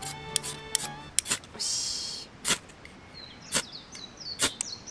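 Ferro rod scraped with a striker to throw sparks onto homemade char cloth that is slow to catch: one longer scrape about one and a half seconds in, then three short, sharp strikes about a second apart. Small birds chirp in the background.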